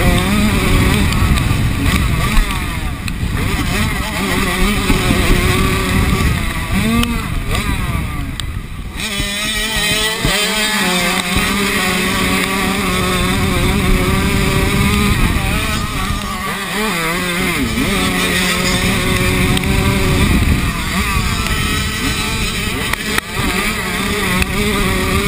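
Minicross motorcycle engine racing around a dirt track, heard close up from a camera on the bike, its pitch rising and falling over and over as the throttle is opened and shut, with short drops where the rider rolls off.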